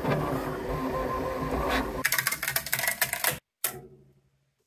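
Bambu Lab X1-Carbon 3D printer running, its motors making a steady whine with several held tones. About two seconds in, this gives way to a burst of rapid clicking and rattling that cuts off suddenly.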